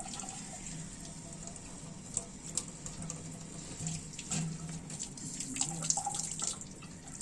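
Water splashing and trickling softly in a bucket as a kitten is bathed, with scattered small splashes.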